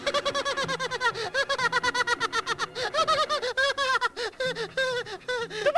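A cartoon boy's high-pitched laughter, a fast unbroken run of short 'ha-ha' notes, about seven a second.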